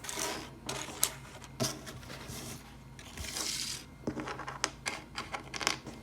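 Small plastic LEGO pieces clicking and clattering as they are handled and set down, with irregular sharp clicks and a short rustling scrape about three seconds in.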